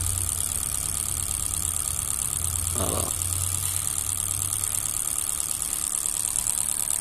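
Planatc fuel injector test bench running an equalization test at 3 bar: the injectors fire in a rapid steady clicking and spray test fluid with a constant hiss, over a low hum from the bench. The test checks whether the worn injectors match a new Bosch replacement.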